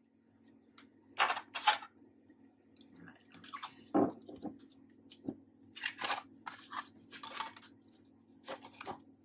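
Scattered knocks, clicks and rustles of kitchen things being handled on a worktop: a glass bottle set down with a sharp knock about four seconds in, then plastic tubs and bowls being picked up and moved. A faint steady hum runs underneath.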